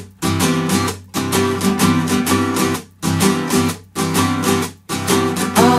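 Background music, an instrumental passage with strummed guitar chords in a steady rhythm, cut by short gaps about once a second.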